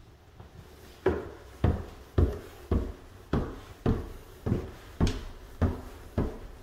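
Footsteps climbing a staircase: about ten regular thuds on the stair treads, roughly two a second, beginning about a second in.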